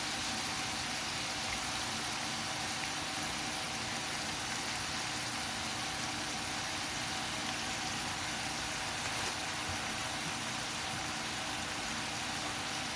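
Pork and potatoes cooking in a pan on the stove: a steady hiss with a constant low hum underneath.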